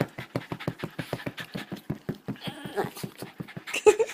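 Boston terrier panting hard and fast, about eight breaths a second, breaking into short whining cries twice near the end, the excited noises of a dog begging to play ball.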